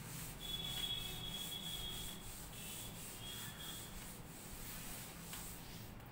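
A blackboard duster wiping chalk off a chalkboard in repeated strokes. A thin high squeak sounds over the first few seconds.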